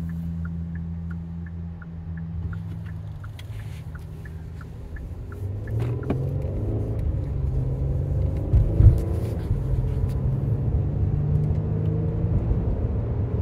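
Turn-signal ticking in the cabin of a 2020 Kia Telluride V6, about two and a half ticks a second, over the low hum of the idling engine. About six seconds in the ticking stops and the engine rises in pitch as the SUV pulls away and accelerates, with a single loud thump near nine seconds.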